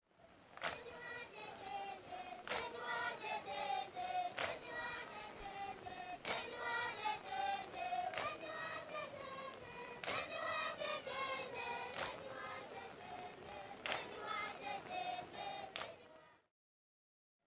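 A group of children singing together, with a sharp beat struck about every two seconds.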